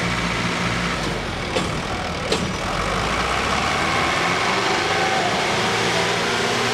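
Diesel engines of a Sonalika 60 and a John Deere 5310 tractor running hard under heavy load as the two pull against each other, the Sonalika blowing black smoke at full throttle. A couple of short knocks sound about two seconds in.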